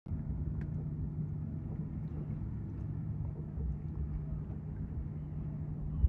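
Steady low rumble of a motorboat's engine running, with a constant low hum.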